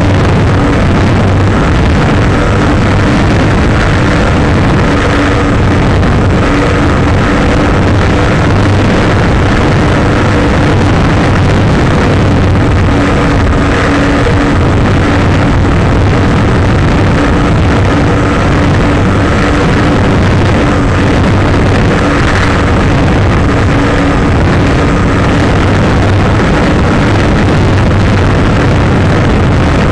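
Brushless electric motor and propeller of an RC plane running steadily in flight. The sound is heard from a camera mounted on the plane, with loud wind rushing over the microphone.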